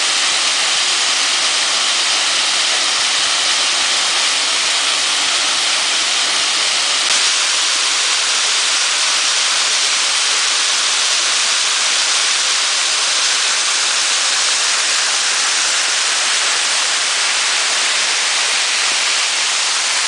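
Waterfall pouring over a rock ledge onto boulders, a steady loud rush of water heard close to the falls.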